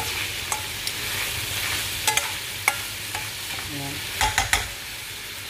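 Prawns and crab claws frying in garlic butter in a wok, a steady sizzle, while a metal spoon stirs them and clicks against the pan, with a quick cluster of clicks about four seconds in.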